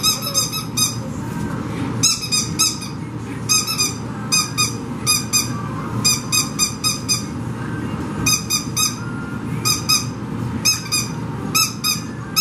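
Squeaky dog toy squeezed by hand, squeaking in quick runs of two to five squeaks, over and over, over a steady low background noise.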